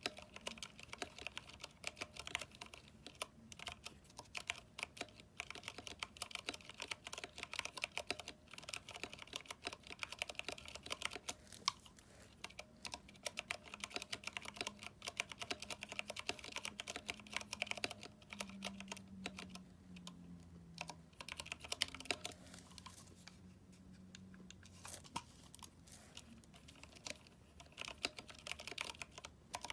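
Continuous fast typing on a mechanical keyboard with Cherry MX Brown switches, PBT keycaps and lubed stabilizers: a dense run of keystroke clicks that thins out briefly about two-thirds of the way through before picking up again.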